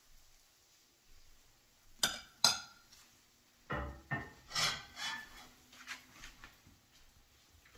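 Nonstick frying pan and metal utensils clattering on a gas stove: two sharp clacks about two seconds in, then a run of knocks and scrapes as the pan is handled on the burner grate and tipped over a plate.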